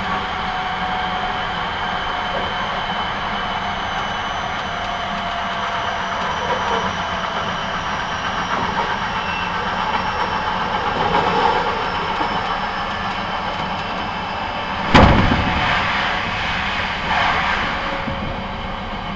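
Hankyu 9300 series electric train running along the line, heard from inside the car: a steady rumble and rail noise with faint whines. A single sharp bang comes about fifteen seconds in, followed by a brief swell of noise.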